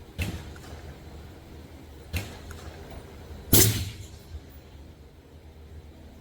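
Model 20 .22 rifle firing a subsonic round, one sharp report about three and a half seconds in, the loudest sound here. Two lighter sharp cracks come before it, about a quarter second and two seconds in.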